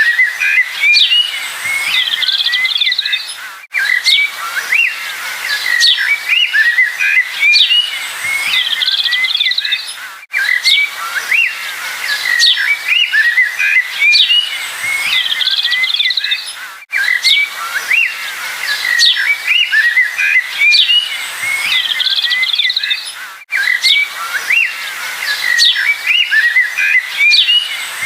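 Many birds chirping at once, a busy chorus of quick high notes and short trills. The same few seconds of recording repeat about every six and a half seconds, with a brief dropout at each join.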